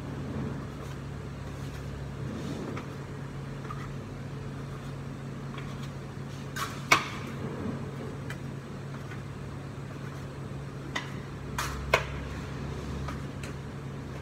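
Steady low hum of kitchen machinery, with a few sharp clacks of utensils or trays knocked against the counters; the loudest comes about seven seconds in, another about twelve seconds in.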